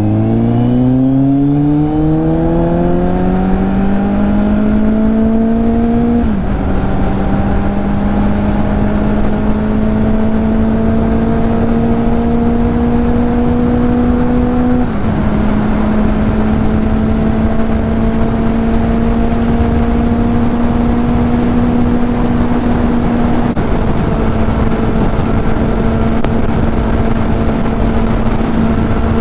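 Kawasaki Z800 inline-four engine heard from on board, pulling hard in gear with its pitch climbing. It upshifts with a sudden drop in pitch about six seconds in and again about fifteen seconds in, with a slight dip later on, and then runs at a steady highway cruise. Wind rushes over the microphone under the engine.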